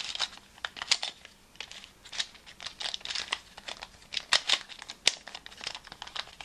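Pyramorphix puzzle, a 2x2 shape-mod twisty puzzle, being turned quickly by hand: its plastic pieces click and scrape in an irregular run, with one sharper click about five seconds in.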